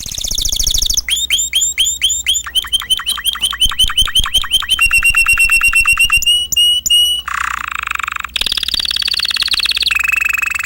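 Domestic canary singing: phrases of rapidly repeated notes, first quick downward-sweeping notes about five a second that speed up into a fast trill, then lower buzzy rolls.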